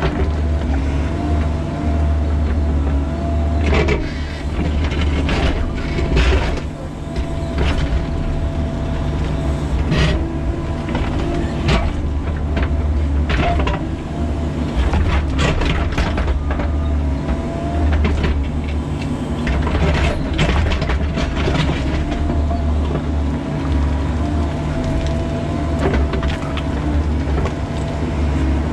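Bobcat E45 mini excavator's diesel engine running steadily under load, with a whine that wavers as the boom and bucket work. Irregular clanks and scrapes of the steel bucket digging into rock and stone throughout.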